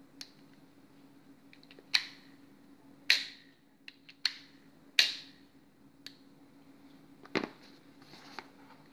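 Full-metal ASG Schofield 6-inch CO2 revolver's action being worked by hand: a handful of sharp metallic clicks, each ringing briefly, with smaller ticks between. About seven seconds in, a duller knock as the revolver is laid down on its box.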